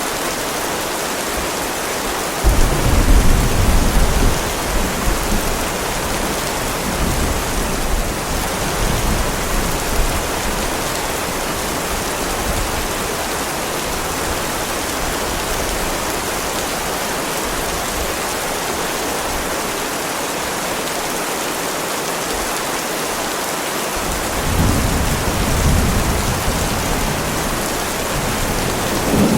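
Heavy rain falling steadily, with rolls of thunder rumbling low: one starting a few seconds in, a weaker one later, and another building near the end.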